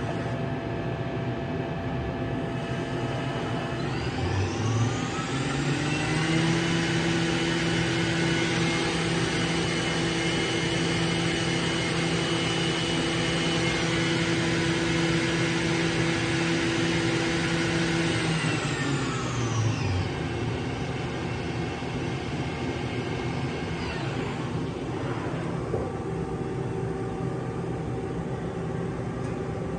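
Okuma MA50HB horizontal machining center spindle spinning up with a rising whine about four seconds in, then running at a steady high pitch. It winds down with a falling whine about two-thirds of the way through, over a constant machine hum, and a shorter falling whine follows a few seconds later.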